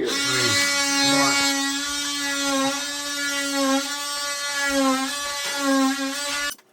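Oscillating multi-tool cutting into the wall for the vent hole: a steady, high-pitched buzzing whine that dips slightly in pitch now and then under load, then stops suddenly near the end.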